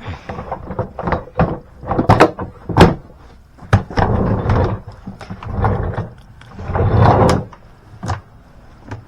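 Irregular knocks, clunks and bumps of objects being handled and moved about, with a couple of longer scraping or rustling stretches about four and seven seconds in.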